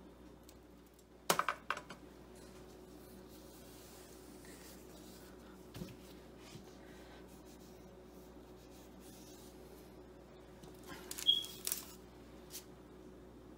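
Kitchen utensil handling: a plastic cookie stamp, a spatula and a baking tray clicking and tapping on a countertop, with a quick cluster of clicks about a second in, a soft knock near the middle and another cluster of clicks near the end. A faint steady hum runs underneath.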